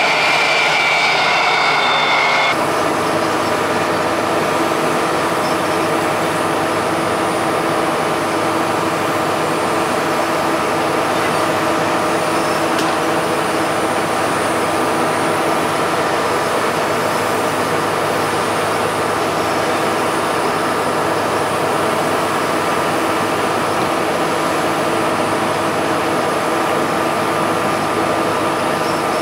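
Steady machinery drone from a parked jet airliner and its ramp equipment at the gate: an even hum with several constant tones. For the first two seconds or so a higher whine sits on top, and it stops abruptly about two and a half seconds in.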